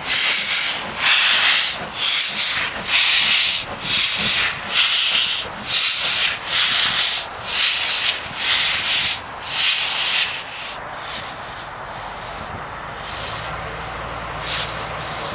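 Small industrial saddle-tank steam locomotive moving off, its exhaust beats hissing at about two a second with steam blowing from the cylinder drain cocks. The beats stop about ten seconds in, and a low steady diesel shunter engine note comes in near the end.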